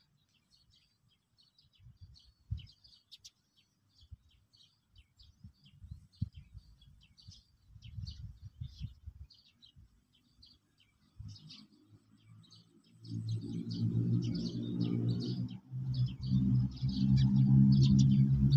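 Small birds chirping repeatedly, with scattered low thumps in the first half. About thirteen seconds in, a loud, steady low drone sets in and becomes the loudest sound.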